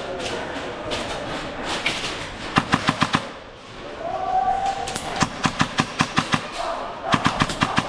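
Airsoft guns firing in rapid bursts of sharp snapping shots, about eight to ten a second: a short burst about two and a half seconds in, then two longer strings from about five seconds in.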